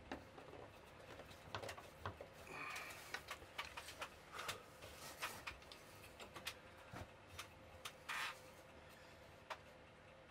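Faint workshop handling sounds: scattered light clicks and taps, with a few brief scrapes, as a screw clamp is tightened on a board and small pieces of wood are handled on a wooden workbench.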